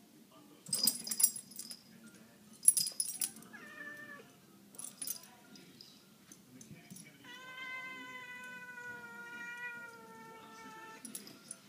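Domestic cats play-fighting: collar tags jingle in two short bursts and a fainter third, a cat gives a short call, then one long drawn-out yowl of about four seconds that sinks slightly in pitch toward its end.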